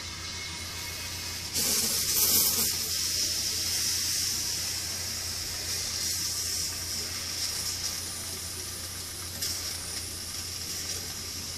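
Hissing bursts of water being sprayed: a loud burst about one and a half seconds in and a shorter, weaker one near the end, over a steady background hiss.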